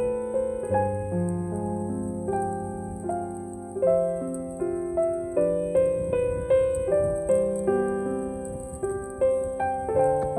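Soft background piano music: a gentle melody over held bass notes, with a note struck roughly every half second in the second half.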